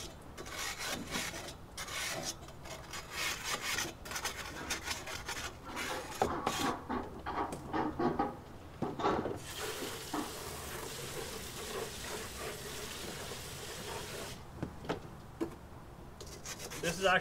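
Grill-cleaning stone scrubbing along barbecue grates in uneven scraping strokes, the block wearing down and shaping itself to the grates as it is worked.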